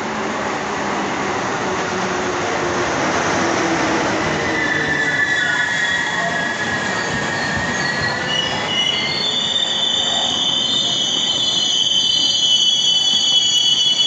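Electric-hauled passenger train running into a station: the rumble of the locomotive and coaches passing, then high-pitched squealing of wheels and brakes that starts about four seconds in and grows louder and shriller near the end as the train slows to stop.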